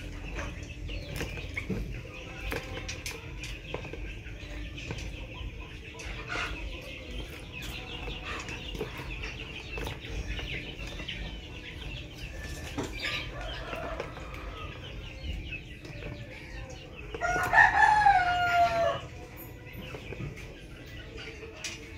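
A rooster crows once, about a second and a half long, near the end. Faint chirps and small ticks go on underneath.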